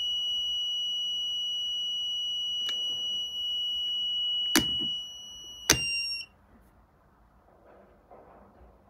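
UKC KC-1000D 12 V power inverter's alarm sounding one continuous high-pitched beep: the inverter has gone into protection mode because its input was switched down to 4 volts while it was running. Rocker switches click three times, and the beep cuts off suddenly about six seconds in.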